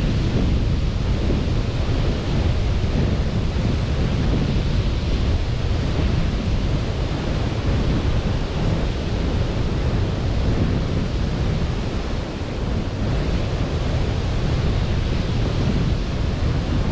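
Steady rush of sea surf on a beach, with wind buffeting the microphone and a heavy low rumble.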